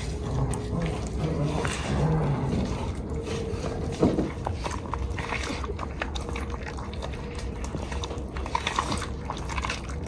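A big cat chewing and gnawing raw wild boar meat on the bone: wet, smacking eating sounds with irregular small crunches, and a sharper knock about four seconds in.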